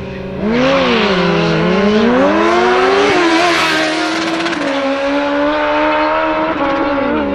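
Sport motorcycles launching hard off a drag strip start line: a sudden burst of engine noise about half a second in, then engines revving high as they accelerate, pitch climbing and dropping back at each gear shift, with a steep fall in pitch near the end.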